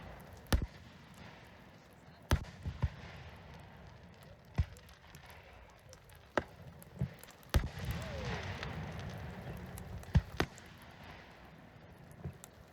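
Fireworks bursting: about ten sharp bangs at irregular intervals, some in quick pairs.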